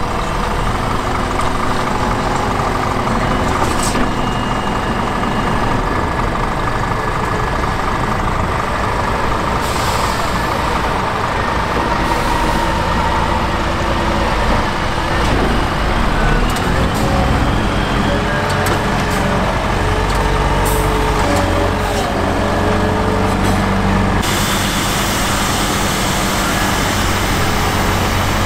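Heavy diesel engines of a Claas Torion wheel loader and a dump truck working at a silage pile, running steadily, with the engine pitch rising and falling as the loader revs while it lifts and moves.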